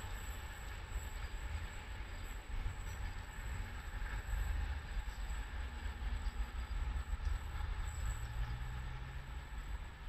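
Electric passenger train approaching along the line from a distance: a steady low rumble, with a faint rising hum coming in near the end.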